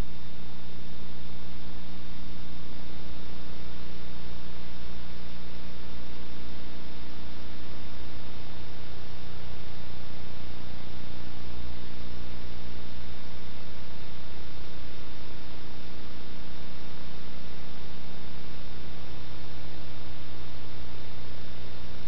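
Steady electrical mains hum with even hiss and a faint high whine, unchanging throughout: the noise of the recording and playback chain on a blank, black-screen stretch of old videotape after the programme has ended.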